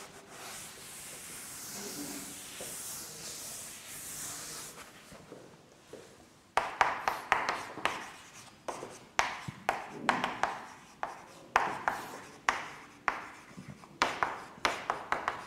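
A board being wiped with an eraser: a soft rubbing hiss for the first few seconds. From about six seconds in, writing on the board: a quick run of sharp taps and short scratchy strokes.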